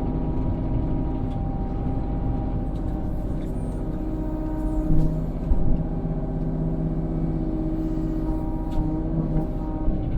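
Kubota KX033-4 mini excavator's three-cylinder diesel engine running steadily at work. A lower steady tone joins in about halfway through and drops out near the end, with a few faint knocks.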